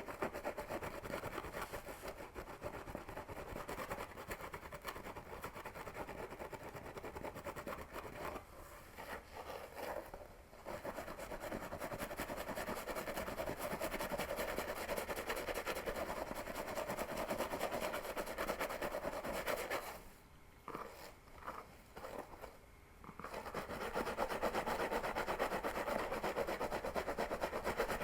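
Fingers and nails scratching a scalp and pulling through hair: a dense, continuous scratching and rustling that drops away briefly about a third of the way in and again about three-quarters of the way through.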